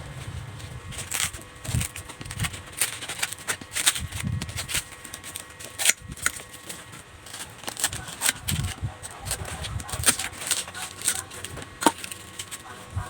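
Irregular clicks, taps and scrapes of hands working coconut craft material, with a few soft low knocks in between.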